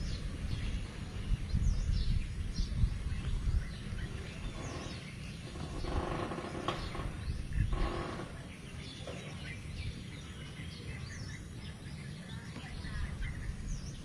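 Yellow-vented bulbul nestlings begging to be fed: many thin, short, high chirps that drop in pitch, with a buzzier, harsher stretch of calls from about five to eight seconds in. A low rumble sits underneath, strongest in the first few seconds.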